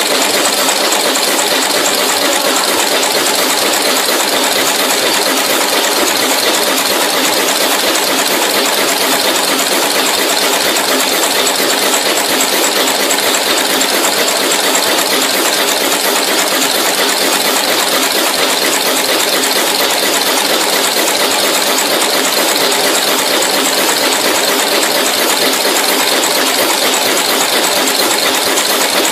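Automatic through-hole insertion machine running, its head rapidly inserting components into a PCB panel: a steady, fast mechanical clatter.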